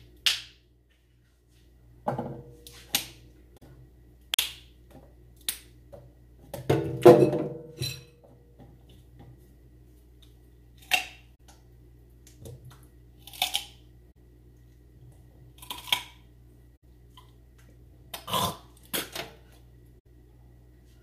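Kitchen utensils and containers being handled: scattered sharp clicks and knocks, with a louder clatter about seven seconds in.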